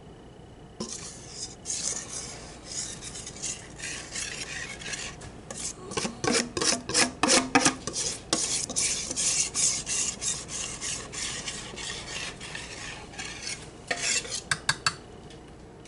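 Metal wire whisk scraping and clicking against the bottom and sides of a glass baking dish as thick batter is spread across a casserole, in irregular strokes. A quick run of sharp clicks about six to eight seconds in is the loudest part, with a few more clicks near the end.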